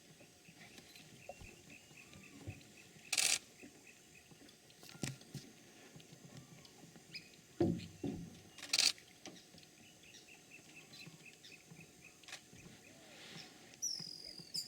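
Yacare caiman booming: a low, rumbling burst about halfway through, with short sharp noisy bursts a little after three seconds and near nine seconds. Insects trill steadily and birds call, with a high whistle near the end.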